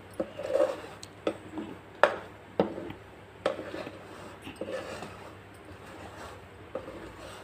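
A metal spoon stirring thick semolina cake batter in a plastic bowl, just after Eno fruit salt has been added: soft squelching, with irregular light knocks of the spoon against the bowl, about one a second.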